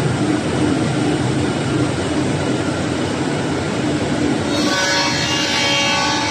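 A wood sanding machine running with a loud, steady noise. About four and a half seconds in, the sound turns brighter, with several steady high-pitched whining tones.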